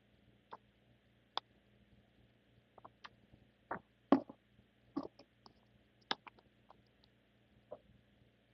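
Irregular clicks and light knocks of small objects being handled by hand, the loudest a sharp knock about four seconds in, over a faint steady hum.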